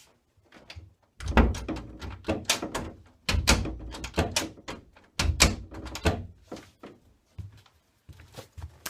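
A door being swung open and shut on its freshly repaired hinge, thudding closed three times with rattling clicks after each, then lighter clicks near the end: a test that the hinge screws now hold.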